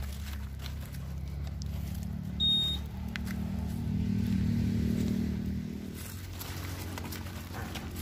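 Small vehicle engine running steadily, swelling a little about halfway through, with one short high peep about two and a half seconds in.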